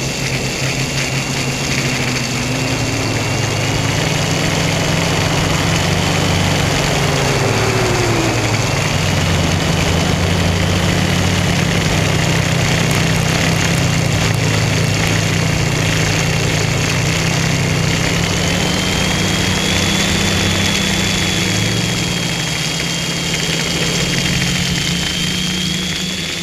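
Squid quadcopter's brushless motors and propellers buzzing steadily, heard from the onboard camera as it descends, with a high whine that wavers in pitch and rises slightly later on.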